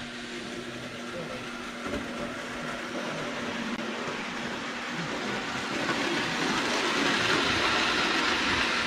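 Prewar Lionel O gauge model trains running on steel track: a dense rolling rumble of wheels and motors with a faint steady hum, growing louder from about six seconds in as a train comes closer.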